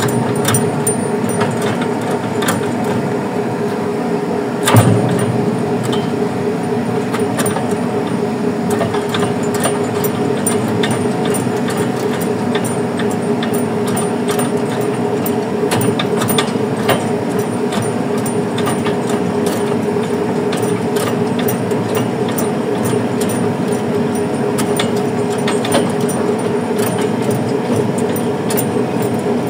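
Fishing boat's machinery running with a steady hum while a purse seine full of fish is hauled alongside, over a constant crackle of small splashes and ticks from fish thrashing at the surface of the net. One louder knock about five seconds in.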